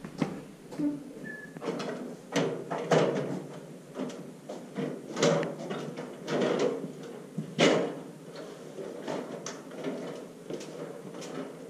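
A stepladder being carried in, stood up and climbed, with footsteps: a run of irregular knocks and clunks, the loudest about three, five and a half and seven and a half seconds in.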